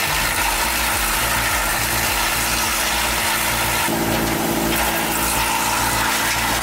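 Tractor-mounted wood chipper and the tractor engine driving it, running steadily, with a short change in tone about four seconds in.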